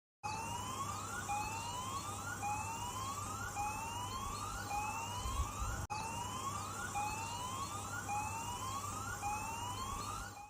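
Tsunami warning siren sounding a repeating rising whoop: each sweep climbs in pitch over about a second, then starts again.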